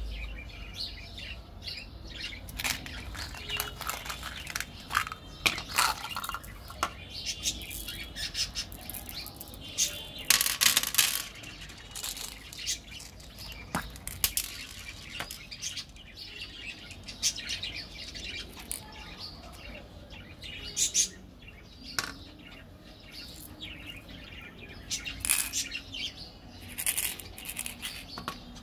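Hands handling and opening small plastic candy containers and a plastic surprise egg: irregular clicks, taps and rustles of plastic, with birds chirping in the background.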